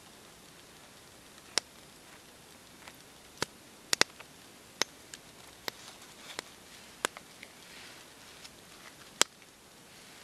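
Sharp, irregular clicks and taps, about nine in all, from a thin wooden stick and a piece of bark being handled. A faint rustle of handling runs between them.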